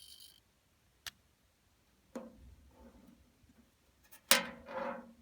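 A sharp click, then short electronic sound effects from a custom Zaku head model's built-in speaker, the loudest a sudden pitched blast with a held tone near the end.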